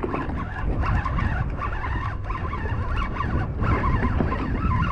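Wind buffeting the microphone on an open boat, a rough, uneven rumble, with faint wavering higher-pitched sounds over it.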